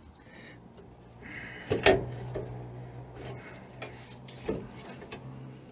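Metal scraping and clinking as a threaded coil-spring compressor is handled and hooked onto a coil spring, with a sharp metallic knock about two seconds in and a lighter one near the end. A steady low hum runs underneath from about two seconds in.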